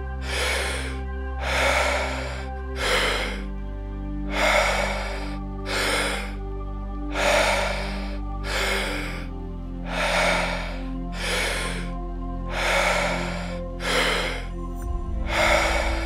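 Slow ambient background music with sustained low chords. Over it, a person breathes deeply in and out at a steady quick pace, about one full breath every two and a half seconds. This is the forceful breathing of a Wim Hof method round.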